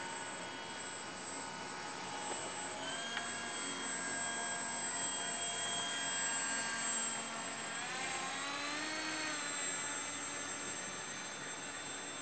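Radio-controlled model boat's motor running with a whine that steps up in pitch about three seconds in, then rises and falls again a few seconds later.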